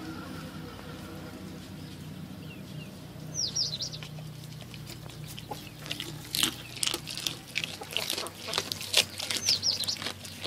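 Chickens giving short high chirps twice, over a low steady hum that fades out. From about six seconds in, a run of sharp, irregular crunching clicks from the goat chewing fish.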